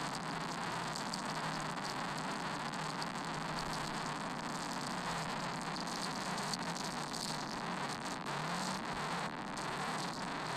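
Steady hiss of static-like noise with a faint low hum beneath it.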